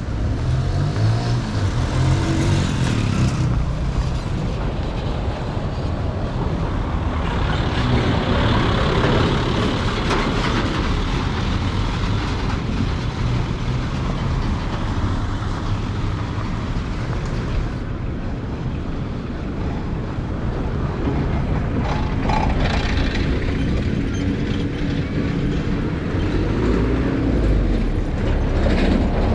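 Road traffic on a dusty construction road: motor vehicle engines running steadily, with an engine rising in pitch near the start and again near the end.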